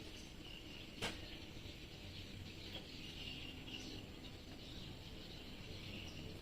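Faint high chirping over a low hum, with one sharp click about a second in.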